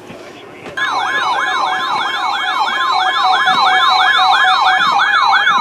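Electronic siren-style alert tone, a rapid yelp that sweeps up and down two to three times a second over a steady tone. It starts suddenly under a second in and sounds as an alert ahead of a weather warning broadcast.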